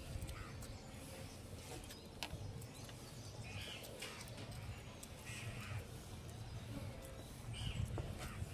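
A crow cawing three times, about two seconds apart, over faint scattered clicks and taps.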